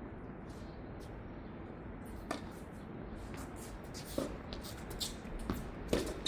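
Tennis ball hit back and forth in a rally: sharp racket strikes every couple of seconds, with fainter ball bounces and footsteps on the hard court between them.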